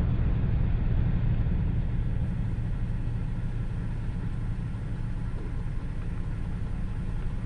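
Steady low rumble of a car heard from inside the cabin, easing off slightly toward the end.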